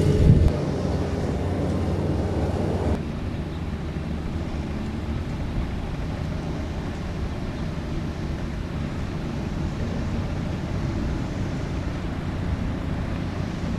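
Steady low wind rumble on the microphone, which drops a little about three seconds in.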